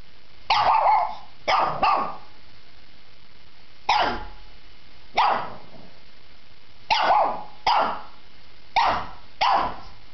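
A shih tzu barking: nine short barks, some alone and some in quick pairs, with pauses of one to two seconds between them.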